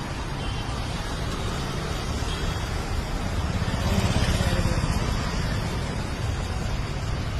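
Steady outdoor street noise with road traffic running, swelling slightly about four seconds in.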